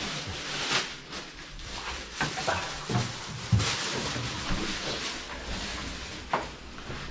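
A plastic bag rustling and crinkling as it is handled, with a few light knocks of things being moved or set down.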